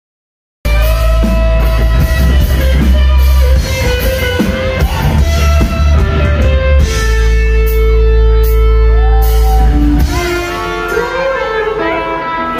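Live rock band playing loud, with electric guitar and drum kit, after the sound drops out completely for about half a second at the start. Near the end the low end falls away, leaving wavering guitar lines.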